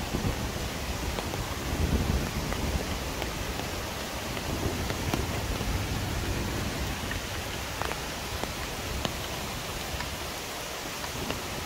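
Steady hiss of rain, with scattered raindrops ticking close by and a few low thuds about two seconds in.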